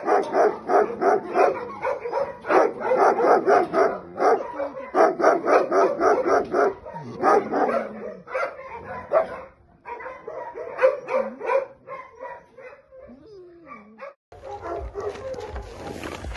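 Dogs barking rapidly and over and over, several barks a second, thinning out after about nine seconds into scattered barks and a short whine. About fourteen seconds in the barking cuts off and a steady rushing hiss follows.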